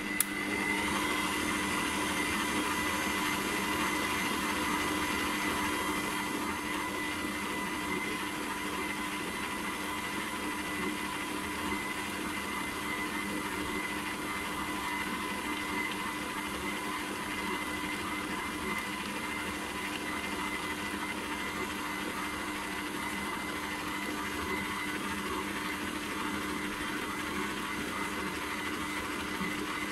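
Aobosi 6L stand mixer running at speed 2, its motor making a steady whining hum as the dough hook kneads flour and water. There is a single click right at the start.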